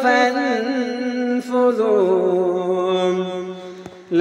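A man reciting the Quran in a melodic chant, drawing out a long held note that fades away near the end.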